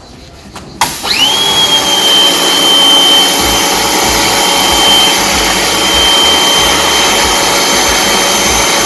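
Kärcher pressure washer starting up about a second in: the pump's whine rises quickly to a steady high pitch over the hiss of the water jet.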